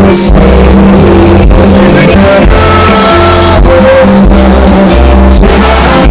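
Live rock band playing loud on a concert stage, with electric guitar, drums, a heavy bass line and a singer's voice.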